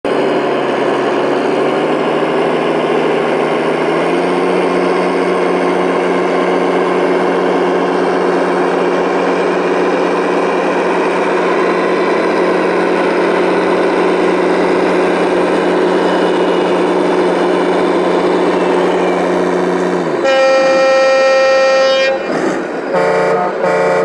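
Radio-controlled scale construction truck running steadily, stepping up slightly in pitch about four seconds in. Near the end a loud horn blast of nearly two seconds, followed by a few short toots.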